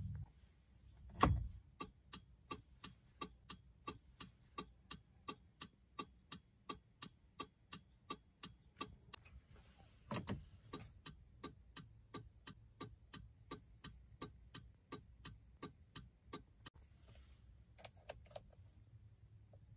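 Turn-signal and hazard flasher of a 2007 Kia Picanto ticking steadily at about three clicks a second. A heavier click of a switch comes about a second in and another about ten seconds in. The ticking stops near the end, and a few clicks of the stalk follow.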